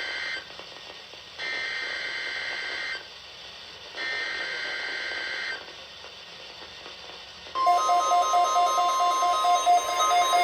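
NOAA Weather Radio test signal: three short bursts of screeching digital SAME header data, then about seven and a half seconds in a steady high alert tone starts together with a rapidly pulsing beep, louder than the data bursts.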